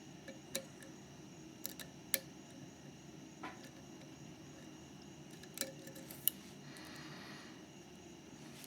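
Sharp, irregular little clicks of a lock pick and tension wrench working the pins inside a Mauer MLS euro cylinder lock, about seven in all, spaced unevenly.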